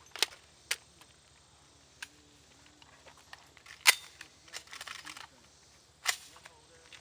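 Sig Sauer MPX 9mm pistol-carbine being handled: a series of sharp metallic clicks and clacks, the loudest about four seconds in, with a quick run of smaller clicks soon after.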